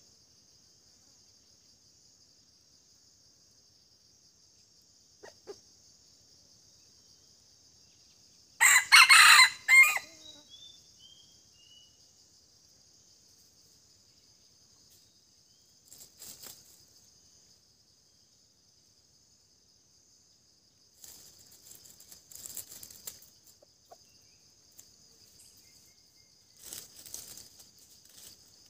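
A red junglefowl rooster crows once, loudly, about nine seconds in, lasting about a second, over a steady high-pitched drone of insects. A few softer, shorter sounds come later.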